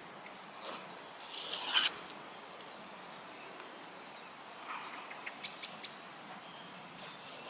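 Strips of elm bark being pulled apart by hand: a short rasping tear that builds and stops just before two seconds in, then a few faint crackles of the fibres.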